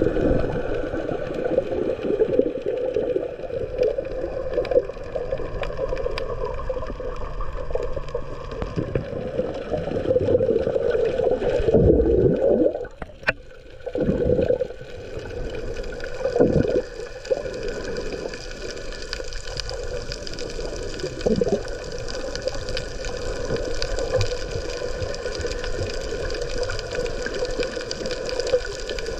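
Underwater sound picked up by a camera below the surface: muffled water movement and gurgling over a steady hum. A few louder gurgling surges come about halfway through, with a brief quieter moment between them.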